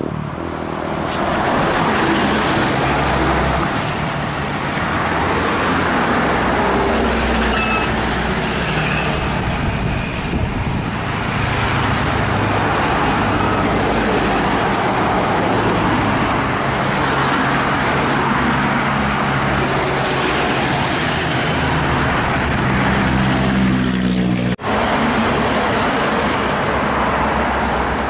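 Intercity buses and trucks driving past on a road: diesel engines running and tyre noise, steady throughout, broken by a sudden brief cut about three-quarters of the way through.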